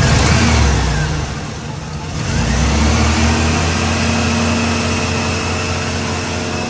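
Car engine revved hard at the start, easing off, then revved up again about two seconds in and held at high revs. A thin steady high whine runs with it, which the owner puts down to a newly fitted drive belt that is too tight.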